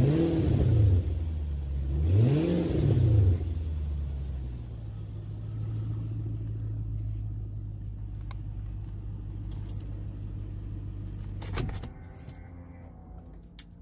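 2003 Infiniti M45's 4.5-litre V8 on its stock exhaust, revved twice in quick succession and then settling to a steady idle. A knock near the end, after which it is quieter.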